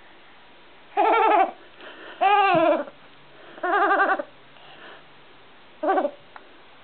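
Seven-month-old baby's bleating laugh: four loud, goat-like bursts with a quavering, pulsing pitch, the second sliding down at its end and the last one shorter. It is the laugh he makes especially when he sees something he wants.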